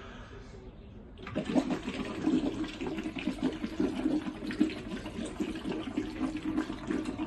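Water bubbling as a man blows out steadily through a long tube into a partly filled plastic bottle, starting about a second in: a bottle breathing exercise for lung rehabilitation.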